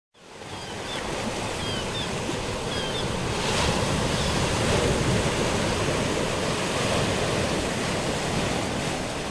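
Sea surf washing steadily onto a rocky shore, fading in from silence at the start. A few faint short high chirps sound over it in the first couple of seconds.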